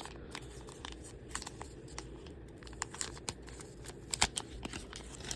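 Packaging being handled and opened by hand: irregular small clicks, crinkles and rustles, with a sharper click about four seconds in.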